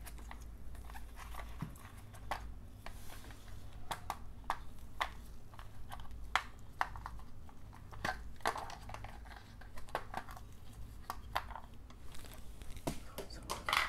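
Handling noise from gloved hands lifting Bluetooth neckband earphones and their cable out of a packaging tray: scattered light clicks and rustles.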